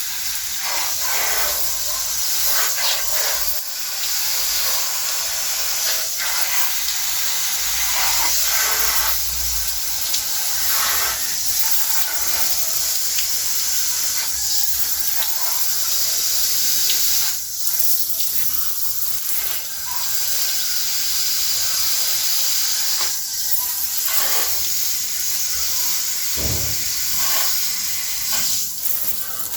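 Water spraying with a steady hiss, broken by faint brief patters.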